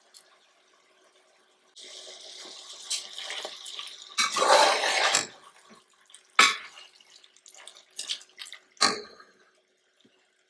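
A metal slotted spoon stirring wet basmati rice into mutton masala in an aluminium pressure cooker. There is a hissing, scraping rush of rice and masala, loudest about halfway through, and a few sharp clinks of the spoon against the pot.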